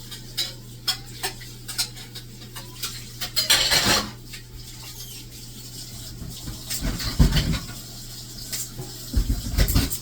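Pots, pans and utensils clinking and knocking in a kitchen, with a short scraping rush about three and a half seconds in and heavier thumps near the end, over a steady low hum.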